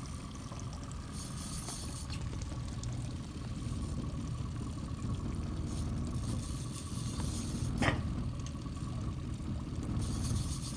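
Boat motor running steadily at low speed, with a constant whine over a low rumble, and water sloshing against the hull. One short sharp sound cuts in about eight seconds in.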